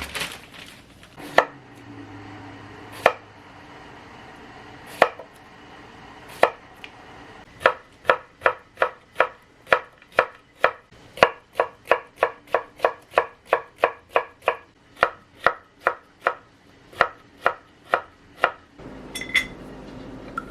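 Kitchen knife chopping on a cutting board: a few spaced cuts, then about ten seconds of steady chopping at two to three strokes a second.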